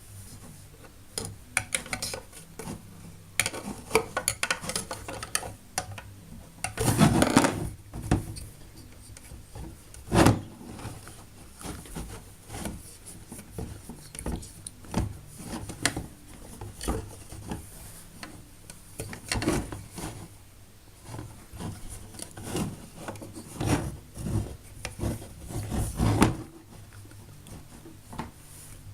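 Plastic Play-Doh tools and molds handled on a tabletop: irregular clicks, knocks and rubbing, with louder clatters about 7 and 10 seconds in and again near the end.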